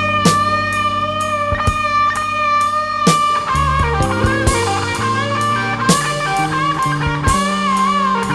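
Instrumental electric guitar solo over bass and drums: one long sustained note held for about three seconds, then a run of bent notes with vibrato.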